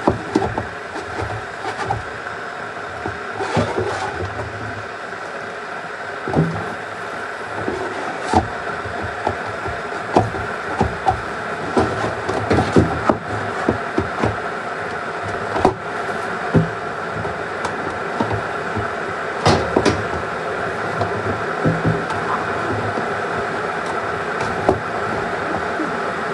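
Irregular knocks and clicks of household items being handled and set down, over a steady hum.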